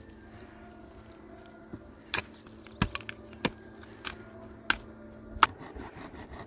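Several sharp, irregularly spaced clicks and knocks of a metal hand tool being worked on black plastic water pipe, over a faint steady hum that stops about five seconds in.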